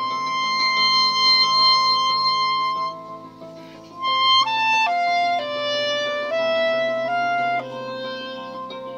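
Clarinet playing a slow melody: one long held high note for about three seconds, a brief dip, then a falling line of held notes. A steady lower accompaniment sounds underneath.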